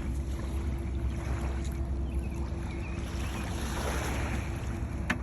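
Steady low rumble of wind on the microphone and moving river water, with a faint steady hum through the first three seconds and one sharp click near the end.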